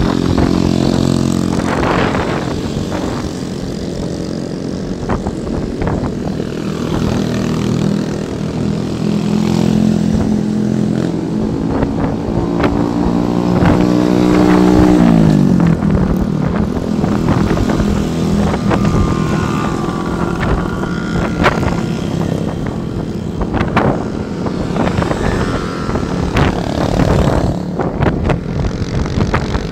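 Small motorcycle and scooter engines running while riding, heard from the moving bike. The engine note climbs and then falls sharply about halfway through as the bike slows.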